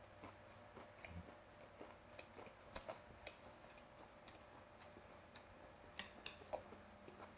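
Quiet chewing of a mouthful of lettuce-and-perilla-leaf wrap with raw snakehead sashimi, heard as scattered soft clicks and crunches, with metal chopsticks now and then ticking against the plate.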